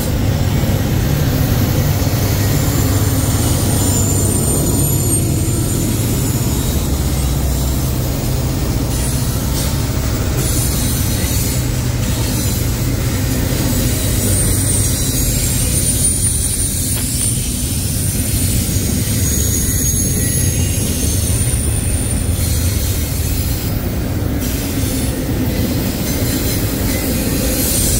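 Norfolk Southern double-stack intermodal freight train rolling past at close range: a steady heavy rumble of wheels on rail, with thin high-pitched wheel squeal coming and going above it.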